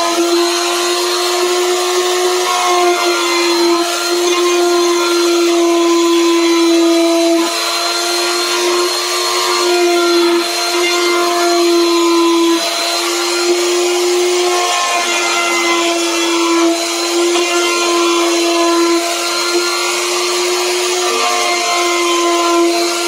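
Handheld electric wood router running at full speed while its bit cuts a carving groove into a wooden panel: a steady high whine over the hiss of cutting, the pitch and level dipping slightly now and then as the bit takes load.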